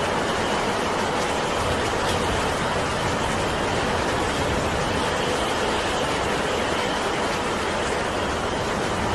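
Steady rain and wind: an even, unbroken hiss with a few faint drop taps.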